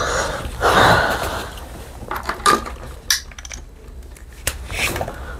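A short breathy rush of rustling noise about a second in, followed by a few scattered light clicks and knocks of objects being handled on a tabletop.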